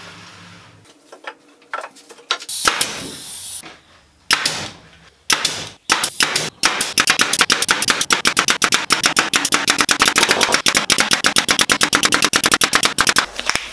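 Pneumatic nail gun firing into pine boards: a short burst of noise, a few single shots, then a fast, even run of shots at about eight a second that stops just before the end.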